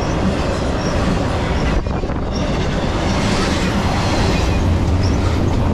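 Intermodal freight train's double-stack well cars rolling past, a steady loud noise of steel wheels on rail, with a brief dip about two seconds in.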